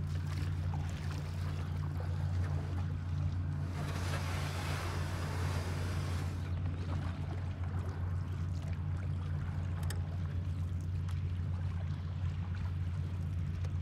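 Steady low hum of the fishing kayak's drive as the kayak moves along, with a few seconds of rushing hiss partway through.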